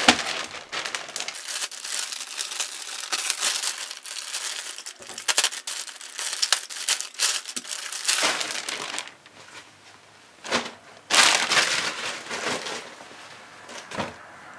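Clear plastic packaging bag crinkling and rustling in irregular bursts as a combat shirt is pulled out of it. There is a quieter spell about two-thirds of the way through, then more crinkling.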